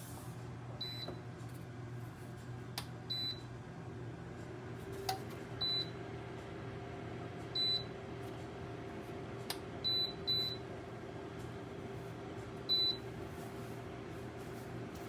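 Dreo ceramic space heater beeping as its buttons are pressed: about seven short high beeps, two or three seconds apart, with a few faint clicks. Its fan runs with a steady low hum underneath.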